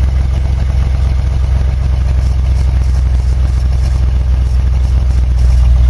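1977 Chevrolet K10 pickup's engine running steadily at low speed, heard inside the cab as the truck creeps along, growing a little louder near the end.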